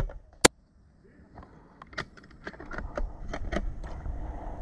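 A single sharp crack from a VSR-10 spring-powered airsoft sniper rifle firing, followed about a second later by a run of irregular clicks and knocks.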